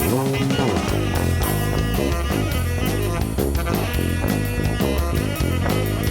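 Instrumental jazz-rock band playing: electric bass holding low notes under a drum kit, with a melodic line that glides in pitch about half a second in.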